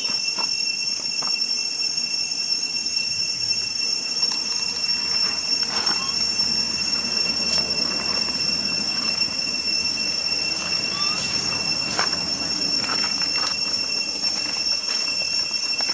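Steady, high-pitched insect drone holding two pitches, with a few short faint squeaks here and there.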